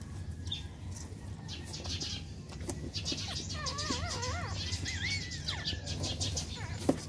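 Newborn Shih Tzu puppies squeaking while they nurse: a few thin, wavering squeaks in the middle, over a steady low hum and soft rustling, with a short click near the end.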